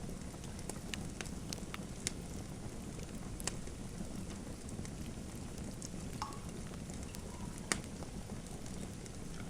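Wood fire in a fireplace crackling: a steady low rumble of flame with scattered sharp pops. The sharpest pops come about a third of the way in and again near the end, with a brief faint whistle from the burning wood in between.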